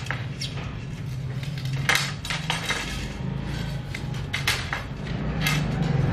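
Light metallic clinks and rattles of steel wires knocking against a bundle of thin steel tubes as they are threaded into the tubes by hand, with a few sharper clinks scattered through, over a steady low hum.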